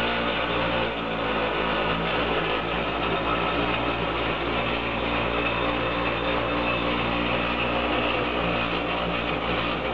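Semi-automatic three-tank PU glue (polyurethane) dispensing machine running: a steady motor hum with broad mechanical noise over it.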